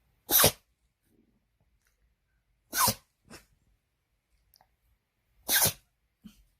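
A dog sneezing three times, about two and a half seconds apart, each a short sharp sneeze followed by a quieter little snort.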